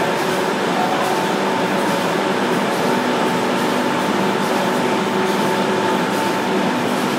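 HDL-A400 three-side-sealing plastic bag making machine running: a steady mechanical noise with a held whine near 1 kHz and a lower hum.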